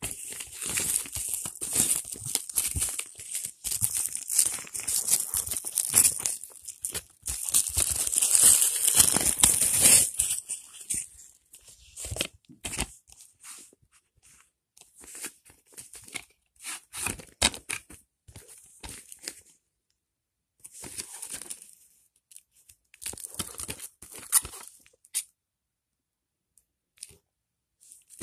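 Clear plastic shrink-wrap crinkling and tearing as it is pulled off a DVD box set. The sound is loud and continuous for the first ten seconds, then comes in short, scattered rustles of handling, and dies away near the end.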